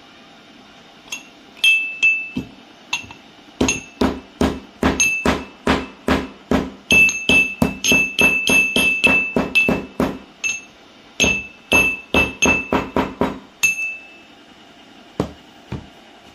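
Hard chips broken off by hand dropping into an empty stainless-steel mixer-grinder jar, each one striking the metal with a sharp ringing clink. A few scattered clinks at first, then a fast run of about three or four a second with a short break in the middle, stopping a couple of seconds before the end.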